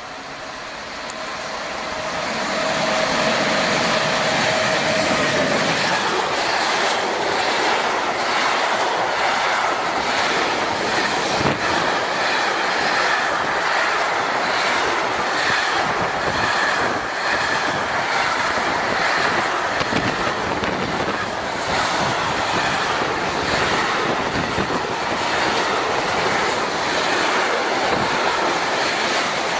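Fast intermodal freight train behind a Siemens ES64F4 electric locomotive passing at speed. The noise swells over the first three seconds, with a steady tone that fades about five seconds in, then container wagons roll by with loud, steady wheel-and-rail noise and frequent clattering knocks.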